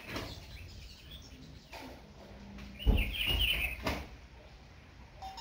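Birds chirping outdoors, with a burst of quick, high chirps about three seconds in. Several low thumps on the microphone, the loudest at the start of that burst.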